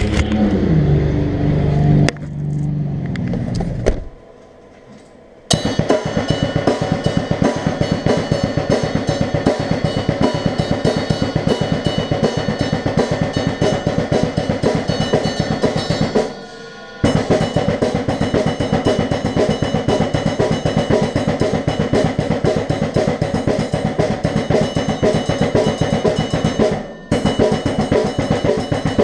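Acoustic drum kit played with a fast, busy beat on bass drum, snare and cymbals, starting about five seconds in and breaking off twice for under a second. Before it, a car engine runs for a couple of seconds, then there is a short quiet gap.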